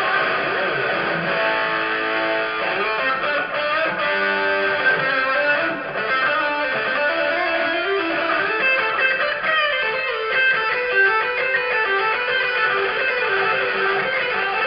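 Electric guitar played live through an amplifier in a theatre: a solo of quick runs of single notes, moving up and down in pitch.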